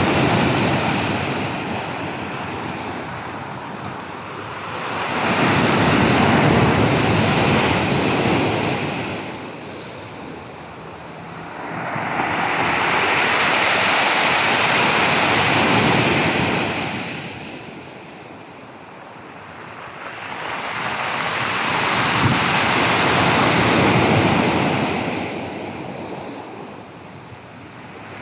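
Black Sea surf: waves breaking and washing on the shore in slow swells about every six seconds, with wind buffeting the microphone.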